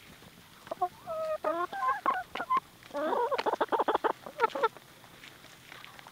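Plymouth Barred Rock chickens calling in short pitched clucks, with a fast run of clucks about three seconds in, then falling quiet near the end.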